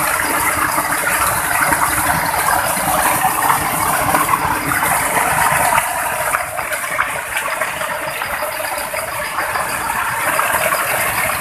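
A small waterfall and stream splashing and trickling steadily, with a crackly, spattering texture. The sound eases a little about six seconds in.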